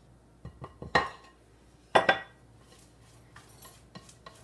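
Rubber spatula scraping and knocking against a glass mixing bowl of batter, with small taps and two sharp clinks about one and two seconds in.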